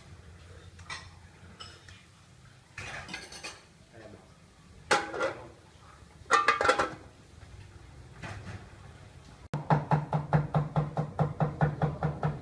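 Aluminium cooking pot lid clattering against the pot's rim as it is handled, two loud clanks a little over a second apart. Lighter clinks come before them. Near the end a fast, even rattle runs at about five beats a second.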